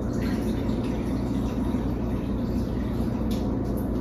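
Steady low machine hum at a constant pitch, unchanging throughout.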